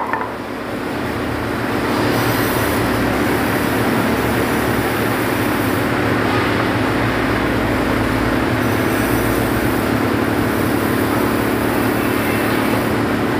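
Forklift engine running steadily with a constant mechanical hum, growing louder over the first two seconds and then holding level.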